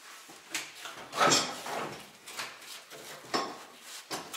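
Irregular knocks and scraping as a fuel tank is shoved and worked against the car's underbody. The loudest bang comes about a second in, with smaller ones after it. The tank is jammed in place and won't come out.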